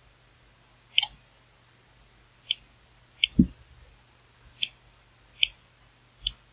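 Computer mouse clicking about six times at uneven intervals, with a low thump just after the third click, over a faint steady low hum.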